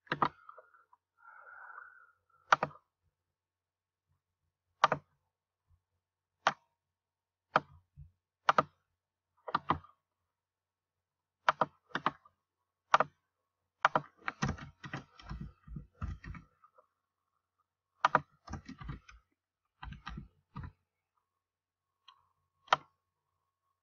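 Computer mouse clicks, single and spaced a second or two apart, with a quick run of computer keyboard keystrokes about two-thirds of the way through.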